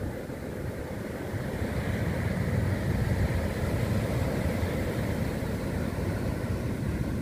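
Ocean surf breaking and washing up a sandy beach: a steady rushing wash that swells louder about two seconds in.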